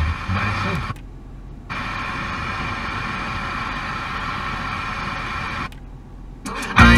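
Car FM radio being tuned up the dial: about a second of noisy, weak reception, a brief mute as it steps frequency, then a steady static hiss on an empty channel for about four seconds. After another short mute, music from a strong station comes in loudly near the end.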